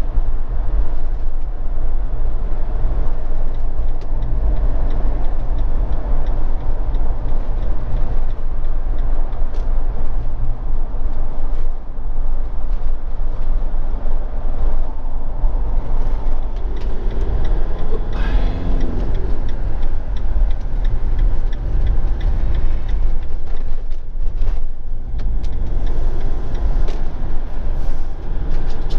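Motorhome driving along the motorway, a steady low engine and road rumble heard from inside the cab. About two-thirds of the way through, a brief tone rises and falls.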